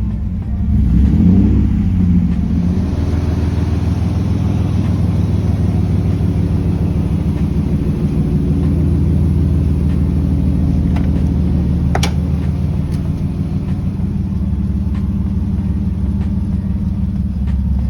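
1986 Nissan 300ZX's V6 engine running at idle, with a brief rev about a second in before settling back to a steady idle. A single sharp click comes near the middle.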